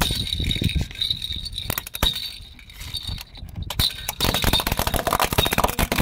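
A plastic baby rattle jingling and clinking as the car tyre rolls onto it. From about four seconds in its hollow plastic balls crack and crunch under the tyre's weight.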